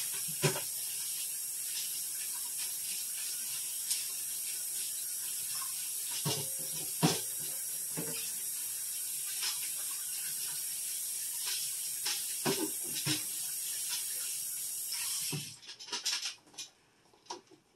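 Kitchen tap running steadily into a sink while a lazy Susan turntable is washed under it, with scattered knocks and clunks as it is handled. The water shuts off about fifteen seconds in, followed by a few clatters.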